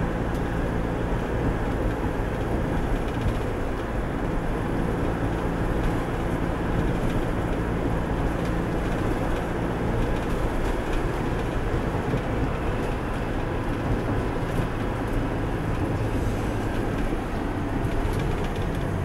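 Steady engine and road noise heard inside a moving van's cabin, with a low, even engine hum under the rolling tyre noise.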